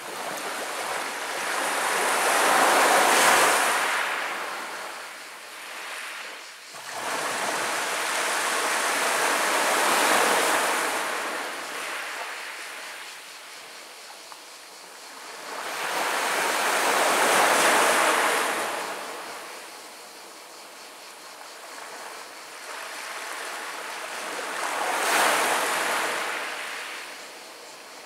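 Small sea waves washing up onto a pebble beach and rolling back over the stones. Four swells of water noise, each rising and fading, about every seven seconds, one of them starting fairly suddenly about seven seconds in.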